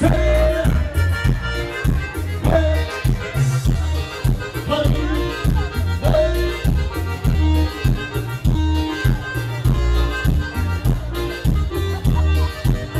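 Live Latin dance music played by a band: a keyboard with an accordion-like sound carries the melody over a steady, pulsing bass and percussion beat, with no singing.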